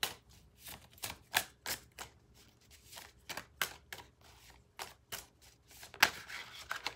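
A deck of tarot cards being shuffled by hand: a string of short, irregular snaps and clicks as the cards slide and tap together, about two or three a second, with the sharpest snap near the end.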